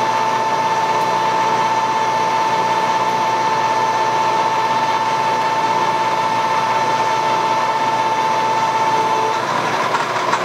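Vertical milling machine spindle running while a drill just under 9/16 inch is fed steadily down through an aluminium shovelhead cylinder head, a steady loud whine over cutting noise. Near the end the tone shifts slightly higher as the drill breaks through the head.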